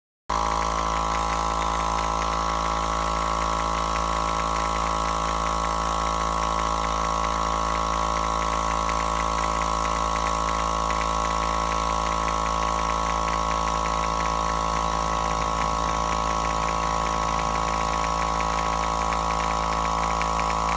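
Small portable air compressor running steadily, inflating a large balloon through its hose; it starts abruptly just after the beginning.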